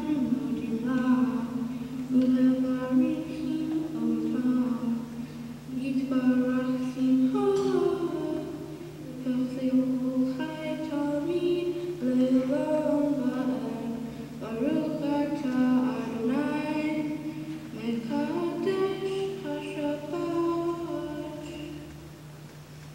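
A girl's solo voice chanting Hebrew liturgy unaccompanied: a slow melodic line of held notes with glides between them.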